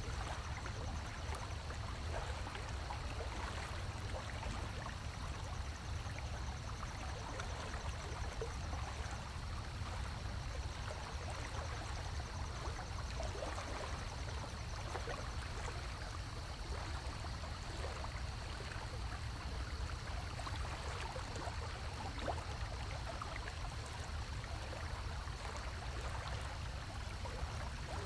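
A shallow stream running steadily over stones, a continuous babble of moving water.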